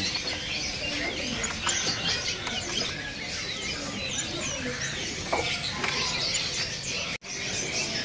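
Many small caged birds chirping and twittering at once, a dense mix of short high calls, with a momentary break about seven seconds in.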